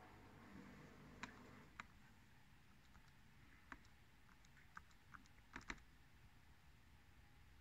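Faint, irregular clicks of the Sharp PC-1401 pocket computer's small plastic keys being pressed one at a time as a command is typed in, with a close pair of clicks a little after the middle being the loudest.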